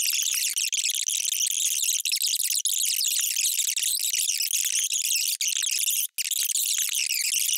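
Two men's debate voices played back at many times normal speed and pitched up into a dense, high-pitched chatter with no intelligible words, broken by a brief dropout about six seconds in.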